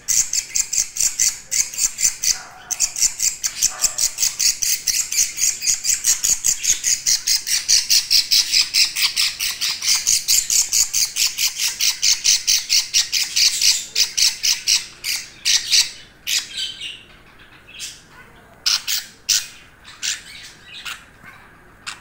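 Budgerigar chicks squawking: a fast, raspy run of calls, several a second, which thins after about fourteen seconds to scattered single calls.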